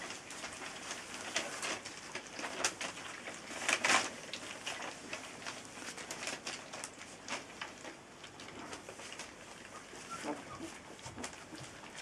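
Several puppies eating dry kibble from a plate: irregular crunching and clicking, loudest about four seconds in, with soft puppy grunts and whimpers.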